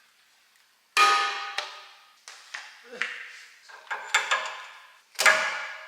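Metal parts knocking together: a series of sharp clangs, each ringing briefly, starting about a second in and coming roughly once a second.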